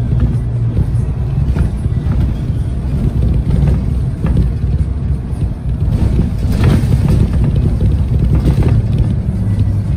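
Inside a 2008 Nova Bus LFS city bus in motion: a steady low engine and road drone, with a few brief rattles about two-thirds of the way through.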